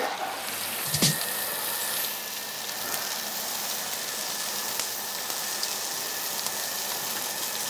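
Thick cubes of Jeju black pork sizzling steadily on a tabletop barbecue grill, with one short knock about a second in.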